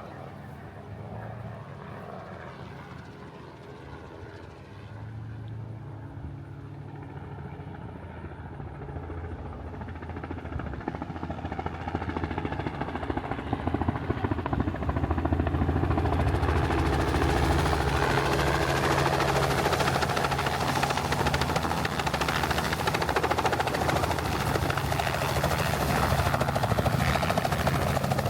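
Helicopter engine and rotor running, growing louder over several seconds about halfway through, then staying loud and steady.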